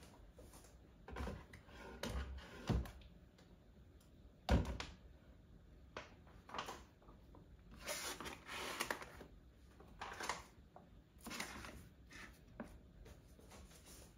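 Bottles and packs of detergent and cleaning supplies being set onto cupboard shelves: scattered knocks and thuds, the loudest about four and a half seconds in, with stretches of rustling between about eight and eleven seconds in.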